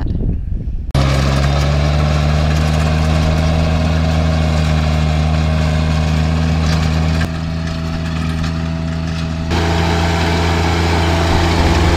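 John Deere 1025R compact tractor's three-cylinder diesel running steadily under load as it drives a PTO rear rotary tiller through sod. It starts abruptly about a second in and is a little quieter for a couple of seconds in the middle.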